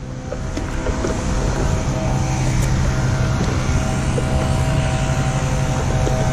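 Paddleboard out on open water: paddle strokes splashing and wind rumbling on the camera microphone, over a steady droning hum.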